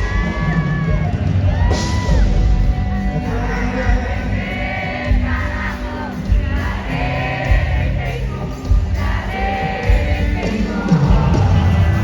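Live rock band playing with a male lead singer, heard as a loud concert recording with crowd sound underneath.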